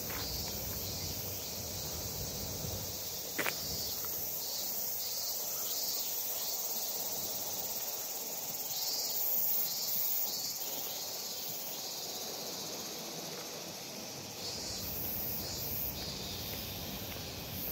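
A steady, high-pitched chorus of insects in the trees, with soft footsteps on a gravel path and a single sharp click about three and a half seconds in.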